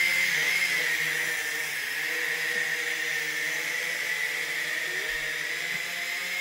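Small toy quadcopter drone's propellers whining steadily, the pitch wavering slightly.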